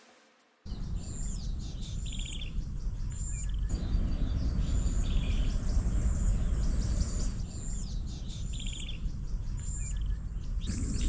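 Birds calling over and over, a short high chirp followed by a quick trill roughly once a second, over a steady low rumble of outdoor background noise.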